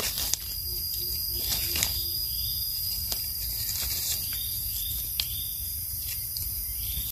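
A steady, high-pitched drone of forest insects, with sharp crackles of dry leaf litter as hands dig bolete mushrooms out of the leaves.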